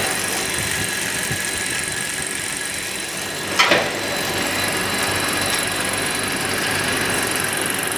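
Corn puff ring production line machinery running steadily: a continuous mechanical hum with a constant high whine. A brief sharp burst of noise stands out about three and a half seconds in.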